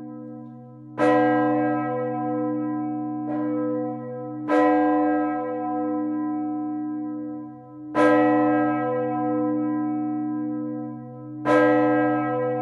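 A large swinging church bell ringing alone, its clapper striking four strong blows about three and a half seconds apart, with a weaker stroke between the first two. Each stroke rings on into the next with a long, low hum.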